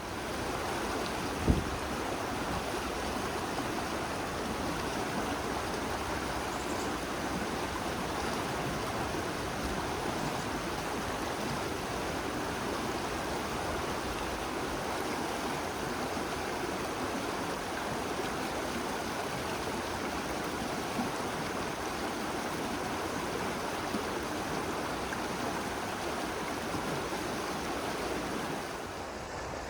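River water flowing steadily, an even rushing wash, with one brief thump about a second and a half in.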